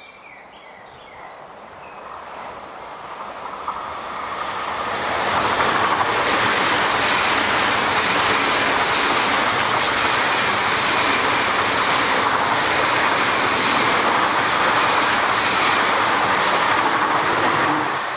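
Deutsche Bahn ICE high-speed electric train approaching and passing close by at speed: a rushing of wheels on rails and air that builds over the first five seconds, then holds steady and loud as the carriages go by, falling away at the very end.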